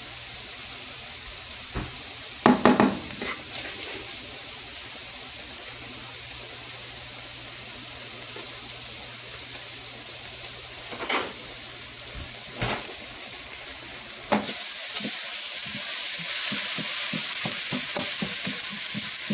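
Beef and onions sizzling in hot oil in a pan, a steady high hiss, with a few short knocks of a utensil against the pan. The sizzle gets louder about three-quarters of the way through.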